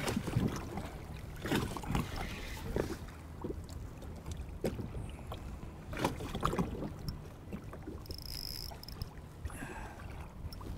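Wind and water lapping against a fishing kayak's hull as a low steady rumble, broken by several short knocks and a brief high tone about eight seconds in.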